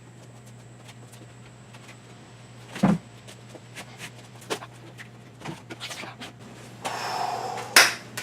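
Scattered clicks and knocks, with one loud thump about three seconds in, a brief scraping rustle around seven seconds and another sharp knock just after it, over a steady low electrical hum.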